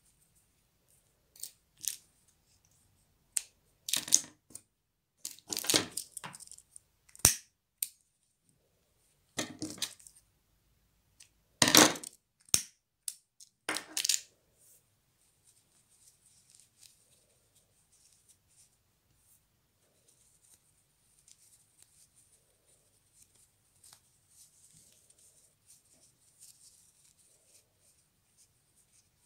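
Handling noises while working a small knitted piece: a string of sharp clicks and knocks, a dozen or so, over roughly the first half, the loudest a little before the middle, then only faint rustling of yarn between fingers.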